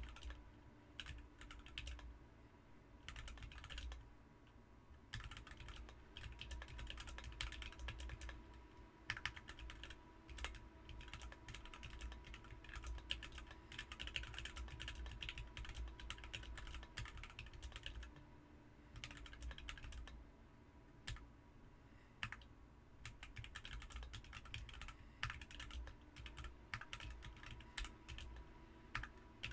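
Typing on a BM43 40% mechanical keyboard fitted with Ms Piggy switches: fast runs of keystrokes broken by short pauses every several seconds.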